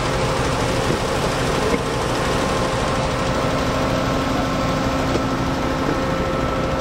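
Construction machine's engine running steadily at constant speed, a rumble with a steady whine over it.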